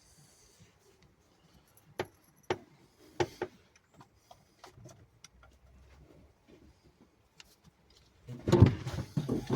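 A few sharp metallic clicks and taps from small parts and tools being handled, then a louder spell of rattling and knocking near the end.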